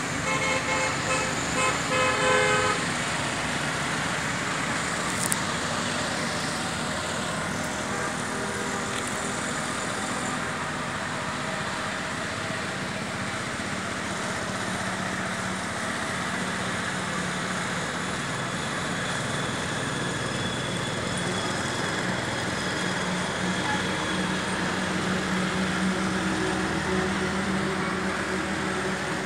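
Steady road-traffic noise from a highway, with a vehicle horn sounding a quick series of short toots in the first three seconds. Later a low engine hum grows a little louder as a heavier vehicle passes.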